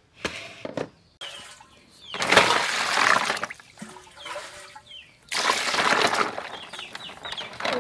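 Water poured from a plastic bowl over snails in an aluminium basin, splashing in two long pours, the second starting about two-thirds of the way in.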